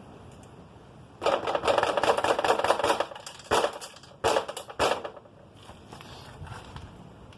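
Metal tool rattling and knocking against a motorcycle's parts: a run of rapid clicking for about two seconds, then three sharp knocks.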